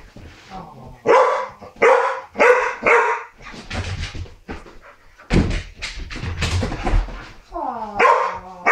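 An excited dog barking at a pig ornament: four quick barks about a second in, heavy thumps midway, and a call that falls in pitch near the end.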